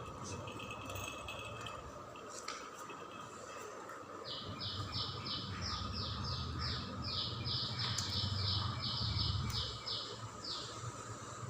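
A bird calling a rapid series of short, repeated high notes, about three a second, starting about four seconds in and stopping shortly before the end, over a low steady background rumble.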